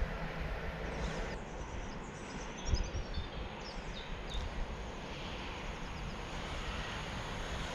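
Small birds chirping in a few short runs of falling notes over a steady low outdoor rumble.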